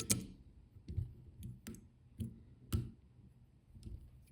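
A comb being worked through the long synthetic dubbing fibres of a streamer fly: a series of sharp, irregular clicks, about six in the first three seconds, then fainter ones.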